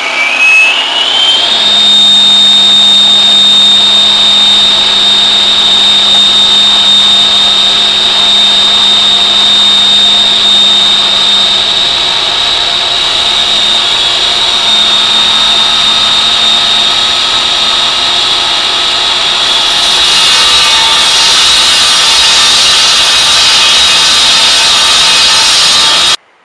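Petrol block saw with a 4.5 hp Robin Subaru engine running and its 16-inch blade cutting concrete block. A high whine rises in pitch over the first second and a half, then holds steady, the sound growing noisier about twenty seconds in before cutting off suddenly near the end.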